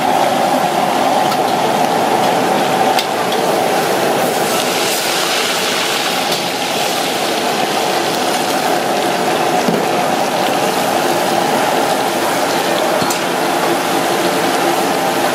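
Egg-battered crab deep-frying in a wok of hot oil: a loud, steady sizzle and bubbling, over a steady mechanical hum, with a few light clicks.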